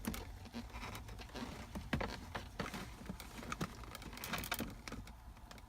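Light clicks and rustling of gloved fingers handling a small 194 LED bulb and pushing it into the plastic socket of the gear shift indicator backlight, the sharpest click about two seconds in.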